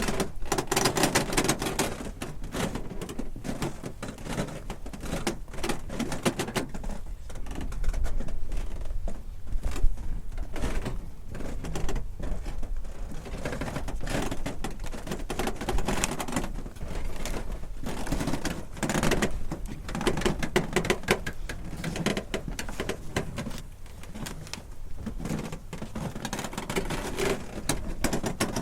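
Wooden dock timbers creaking, groaning and rattling as they shift under strain. The rattling clicks and low groans come and go in repeated swells.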